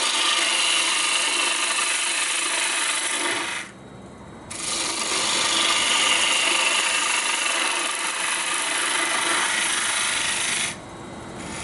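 Lathe gouge cutting into a spinning blank of green fir wood: a steady hiss of shavings peeling off, with the lathe running underneath. The cut stops for about a second around four seconds in, then resumes, and stops again near the end.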